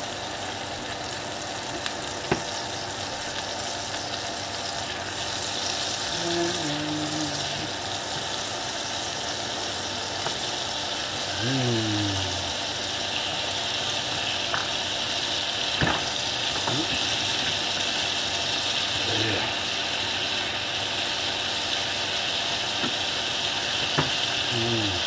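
Butter sizzling and bubbling as it melts in a hot frying pan, growing a little louder, with a few light knocks of a spatula against the pan.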